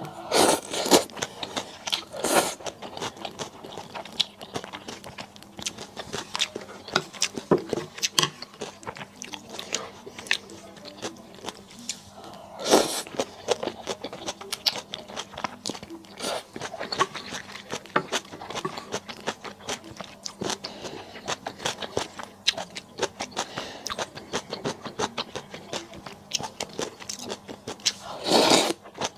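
Close-miked eating sounds: steady chewing and biting with many small wet clicks, broken by a few louder bursts about two seconds in, around thirteen seconds, and near the end.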